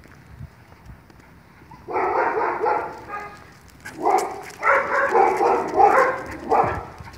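A dog barking in quick repeated runs, first briefly about two seconds in, then again for nearly three seconds from about four seconds in.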